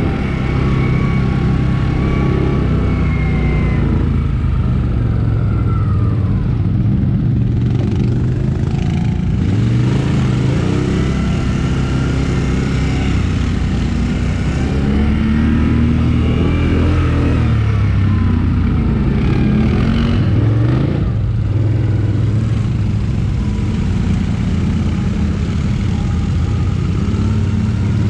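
ATV (quad bike) engine running while riding, its pitch rising and falling again and again with the throttle.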